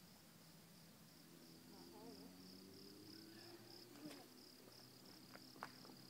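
Faint insects chirring in the rainforest, a steady high pulsing trill, over a low steady hum.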